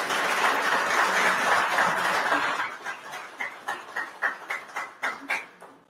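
Crowd applauding: dense clapping for about two and a half seconds, then thinning to scattered single claps that die away near the end.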